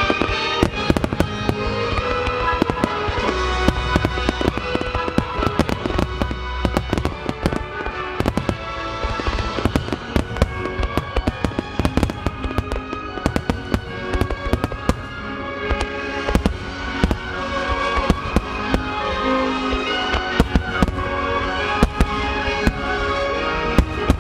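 Aerial firework shells bursting in quick succession, several reports a second, with music playing throughout.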